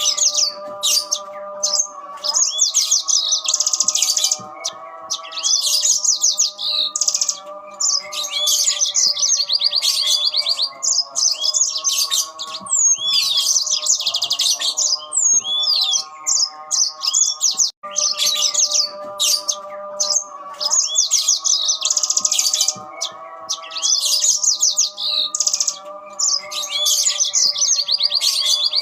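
Mozambique canaries (yellow-fronted canaries) singing back and forth in fast, high trills and chirps, phrase after phrase with short gaps. A steady layer of held lower tones runs beneath the song.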